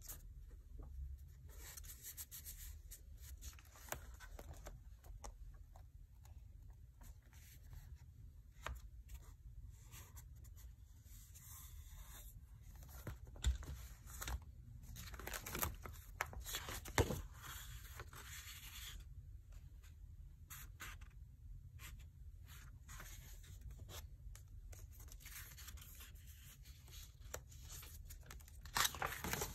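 Paper of a spiral-bound watercolor sketchbook being handled: faint rustling with small clicks and taps. There are louder rustles about halfway through and near the end as pages are moved and turned.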